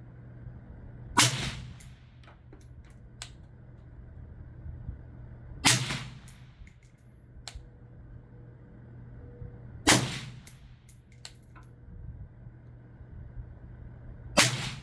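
Four single shots from a 5.56 AR rifle fired through a B&T VERS36 titanium suppressor, evenly spaced about four seconds apart, with 77-grain ammunition. A few small clicks follow each shot.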